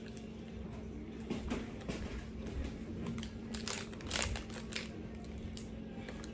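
Crinkling and crisp crunching as a chocolate sandwich biscuit is handled out of its packet and bitten into: scattered short sharp crackles, thickest between about one and five seconds in, over a faint steady hum.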